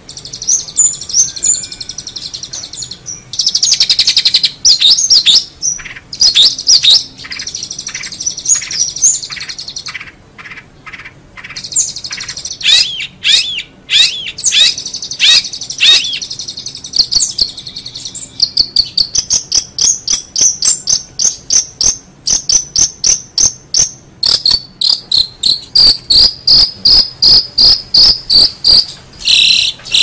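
Long-tailed shrike (cendet) singing a loud, varied song of buzzy trills and sharp chattering notes. Down-slurred notes come in the middle, then from about two-thirds of the way in a fast series of repeated harsh notes, about two a second.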